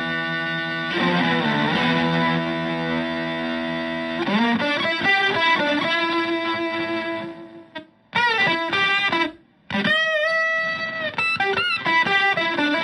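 Fuzz-distorted Stratocaster electric guitar played through a Zonk Machine fuzz pedal into a Fender Twin-style valve amp. A held chord rings for about four seconds with a brief pitch wobble, then lead phrases of single notes with string bends follow, broken twice by short silences.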